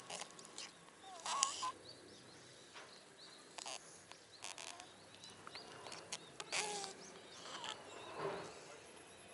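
A black cat with a runny nose, congested with a cold, sniffing and snuffling right at the microphone: about half a dozen short breathy sniffs at irregular intervals.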